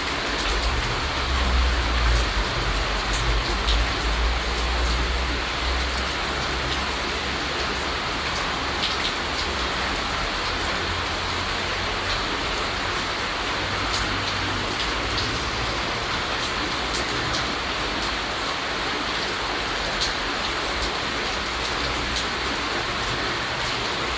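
Steady rain falling, a dense even hiss of drops with scattered sharper drip ticks. A low rumble sits under it, strongest in the first several seconds, then fades.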